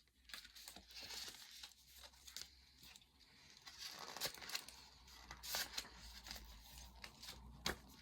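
Paper and packaging rustling and crinkling as items in a beauty subscription box are handled, with scattered small clicks and a sharper tap near the end.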